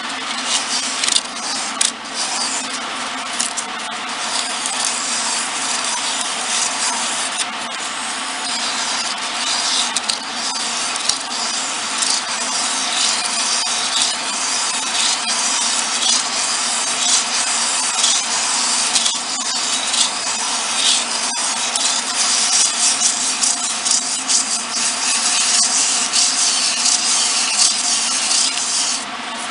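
Sandpaper held by hand against a small wooden piece spinning on a wood lathe at low speed: a steady rasping hiss over the constant hum of the lathe's motor. The rasping eases off briefly near the end.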